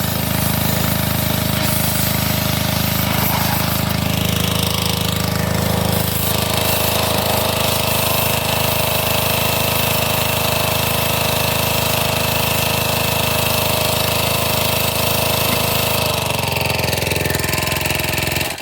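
A Honda GC190 single-cylinder engine on a pressure washer runs steadily at speed. Near the end its pitch sags as it is shut off, and it stops abruptly.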